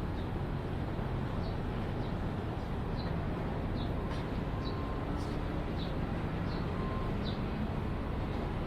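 Railway station ambience: a steady low rumble of idling trains and station machinery, with a small bird chirping repeatedly, a short high chirp a little more often than once a second.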